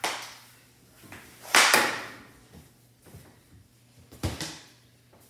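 Three sharp knocks of a hockey stick and puck on a hardwood floor. The loudest comes about a second and a half in and rings on briefly.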